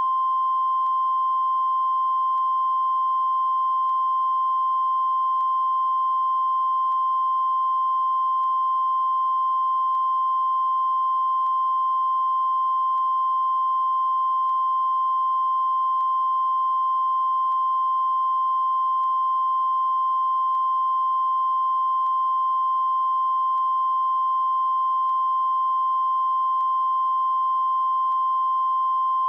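Broadcast line-up test tone accompanying colour bars: a single steady, high-pitched beep held without a break.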